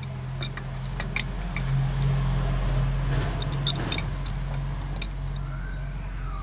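Sharp metallic clicks and clinks of tools and fittings as a new part, likely the diesel injection pump's fuel shut-off solenoid, is fitted and tightened, over a steady low mechanical hum. The sound cuts off suddenly near the end.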